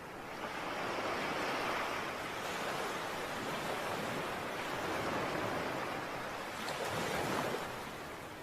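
A steady rushing noise that swells and ebbs about three times, like surf washing in.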